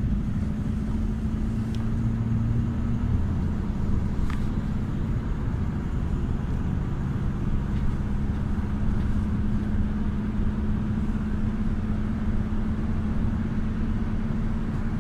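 Engine and road noise inside a 2021 GAZ A64R45 minibus with an Evotech engine, driving along: a steady rumble with a low droning tone that fades out about three seconds in and returns a few seconds later.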